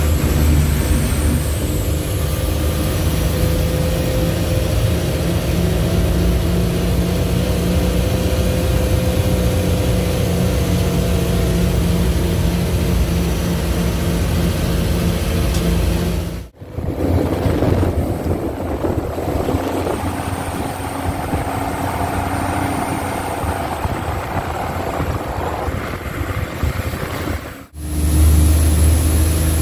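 Leyland 411 truck engine running steadily, heard from inside the cab. The sound cuts out abruptly for a moment twice, about 16 and 27 seconds in.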